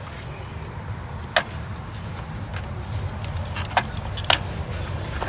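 Sharp clicks and knocks of plastic clips and parts as a car's under-hood fuse box is worked loose by hand, three loud ones about a second and a half, four and four and a half seconds in, over a steady low rumble.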